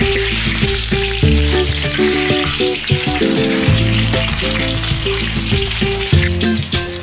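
Food sizzling steadily as it fries in a hot pan, under background music.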